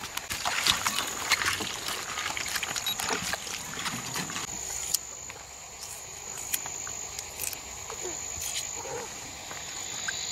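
Steady, high-pitched insect drone, like crickets. A dense run of sharp clicks and crackles fills the first half, with scattered single clicks after.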